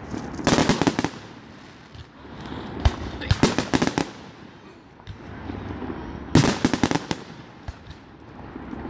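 Aerial firework shells bursting, each burst a quick cluster of bangs and crackles. There are three such bursts, about half a second in, around three and a half seconds and around six and a half seconds, and a single sharp bang just before three seconds.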